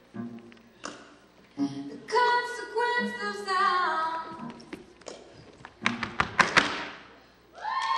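Tap shoes striking a stage floor under the closing phrase of a sung song, ending in a quick cluster of loud, sharp strikes about six seconds in. Applause and cheering start just before the end.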